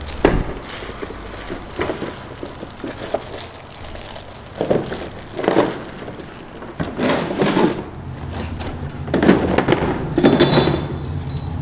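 Clear plastic wrapping rustling and crinkling as a heavy air impact wrench is pulled out of it, with a knock of the tool against its hard plastic case right at the start. A steady low hum runs underneath.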